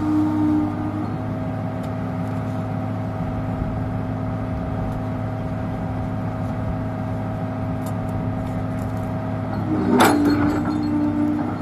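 Komatsu PC200-6 excavator's diesel engine idling steadily. About ten seconds in there is a single sharp metallic clank and a brief surge in engine sound as the bucket is lifted.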